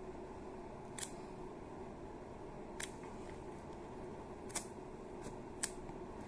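A few faint, sharp clicks and ticks from handling and opening a cardboard phone box, spaced a second or two apart over a low steady hum.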